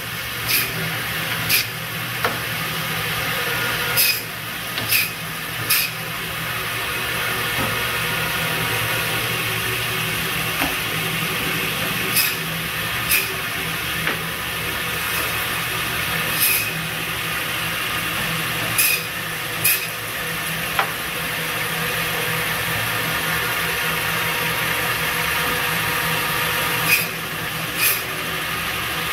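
Biro Model 55 meat band saw running steadily while its blade cuts through pork loins into Western ribs, with short sharp knocks every few seconds.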